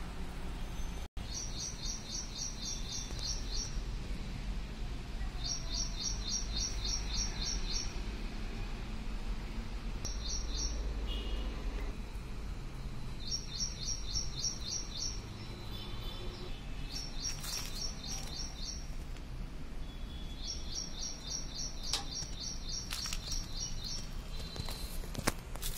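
A bird singing runs of rapid, high, evenly spaced chirps, each run lasting a second or two and repeated every few seconds, over a low steady rumble.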